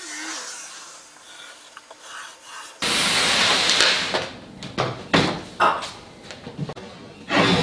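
Wooden chest-of-drawers carcass slid and turned across a wooden benchtop: a sudden loud scraping rub about three seconds in, then several sharp wooden knocks and bumps as it is shifted into place.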